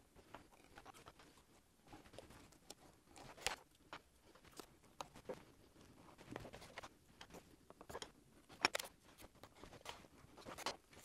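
Faint, scattered clicks and short rustles of hands handling and pressing down Tamiya masking tape on a model rocket fin.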